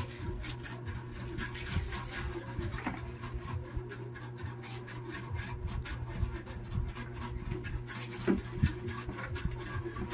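Clear plastic bag rustling and crinkling as a boxed solar flood light is handled in its wrapping, with a steady low hum underneath.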